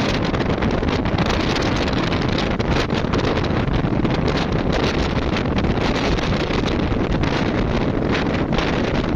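Strong west-monsoon wind blowing hard across the microphone: a loud, steady rushing noise with rapid buffeting.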